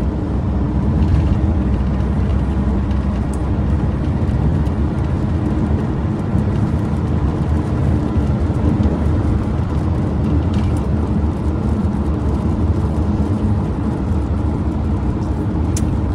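Steady road and engine noise of a car cruising on a motorway, heard from inside the cabin, mostly a low rumble.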